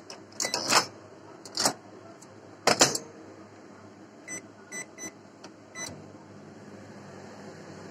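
A few loud knocks and clatters of kitchenware, then about four short electronic beeps from a kitchen appliance's control panel as its buttons are pressed, over a low steady hum.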